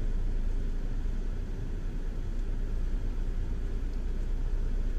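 Steady low rumble inside a car's cabin as the car creeps forward slowly: engine and tyre noise.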